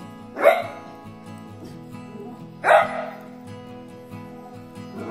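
Beagle puppy barking twice, short sharp barks a couple of seconds apart, annoyed by a handheld neck fan. Acoustic guitar background music plays steadily underneath.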